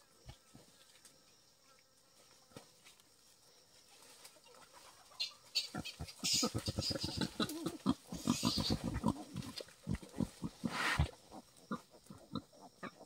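Wild boar sow and her newborn piglets making a fast run of short grunts with high squeals over them. It starts about five seconds in and stops about eleven seconds in.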